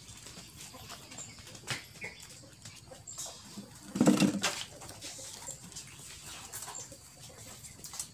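Puppies nursing from their mother dog: faint scattered clicks and snuffles, with one short, low dog grunt about four seconds in.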